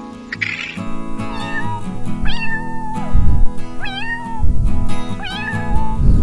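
A cat meowing four times in short, high calls that rise at the start and then hold, over background music with a steady beat.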